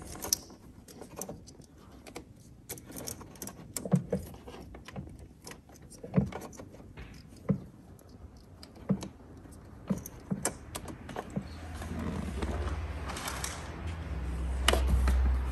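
Scattered sharp clicks and light rattles of small plastic plug connectors and cable being handled and fed through a hole while wiring an SOG toilet fan. A low hum builds over the last few seconds.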